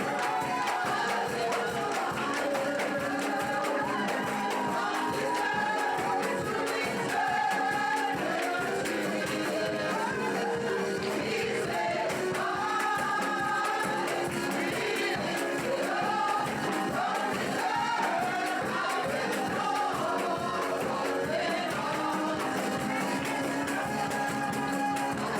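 Gospel worship music: voices singing over a band with a steady beat.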